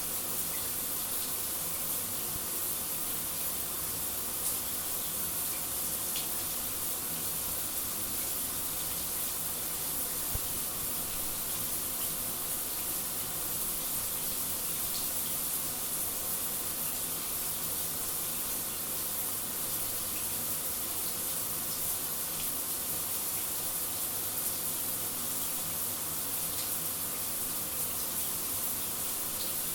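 Shower running steadily: an even hiss of water spray with a few faint ticks.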